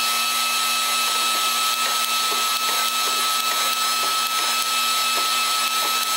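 Motor-driven shop press running with a steady high-pitched whine while its ram bends a flat iron brace over a pipe.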